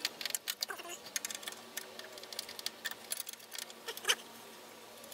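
Irregular light clicks, taps and scrapes of a metal bracket and its taped-in bolts being worked by hand into a truck's bumper opening, with one sharper knock about four seconds in.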